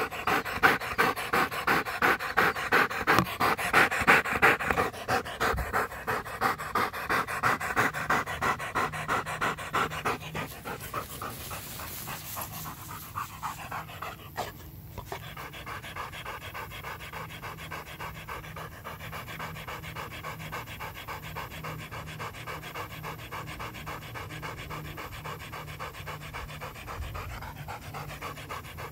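A yellow Labrador-type dog panting hard and fast, winded from frisbee fetching. It is loud and close for about the first ten seconds, then fainter.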